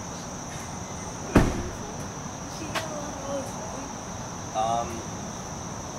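A steady high-pitched drone from a chorus of insects. About a second and a half in comes a single loud thump, and a couple of brief vocal sounds are heard later.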